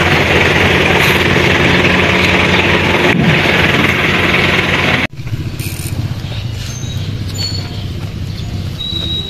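A motor running steadily at a constant pitch, cut off abruptly about five seconds in, leaving a quieter low hum.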